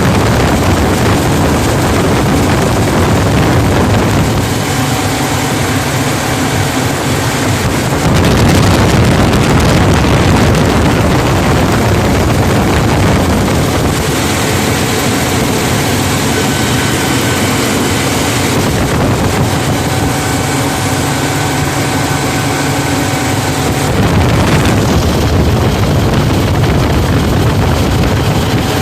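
YaMZ-536 diesel engine running right after an overhaul (new pistons and rings, repaired cylinder head), its note changing every few seconds.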